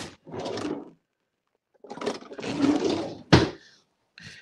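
Kitchen handling noises: two stretches of rustling and scraping about a second apart, with one sharp knock about three seconds in.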